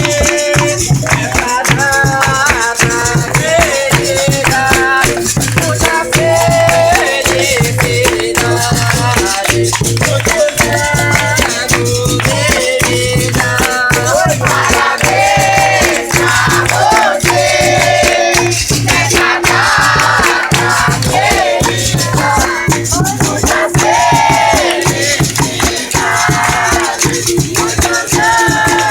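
Capoeira roda music: berimbau with its caxixi rattle keeping a steady rhythm, hand clapping, and sung call-and-response.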